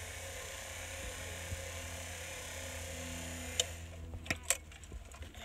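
Homemade battery-electric auger, a salvaged forklift-steering motor driving a cycloidal reducer, whirring steadily as it screws a ground anchor into the soil. About three and a half seconds in, the whir stops with a click, followed by a few knocks.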